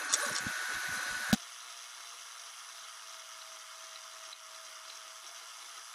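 A 3D printer running as it prints, with a steady whine and irregular low whirring from its moving parts, cut off by a sharp click after about a second. A steady, faint hiss follows.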